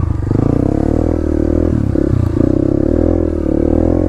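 Dirt bike engine running as the bike is ridden, its pitch dipping briefly a couple of times with the throttle, then holding steady.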